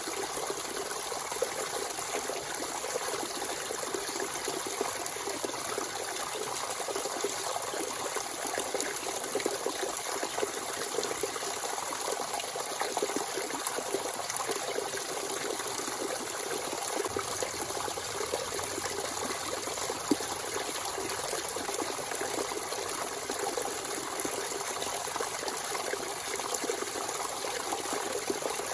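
Natural spring water running and trickling steadily, a continuous splashing babble with a brief click about 20 seconds in.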